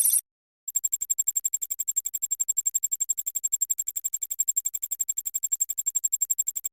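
Synthetic digital counting or data-loading sound effect: a fast, even run of short electronic beeps, about ten a second, holding one high pitch. It starts a moment after a dense ringing effect cuts off and stops abruptly.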